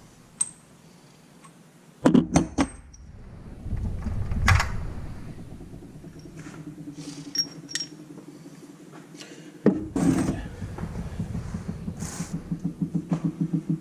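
Metal hand tools clinking and knocking against an aluminium Yamaha YXZ1000 transmission case as a part is worked loose, in scattered sharp knocks. In the last few seconds a low, evenly pulsing hum comes in and grows louder.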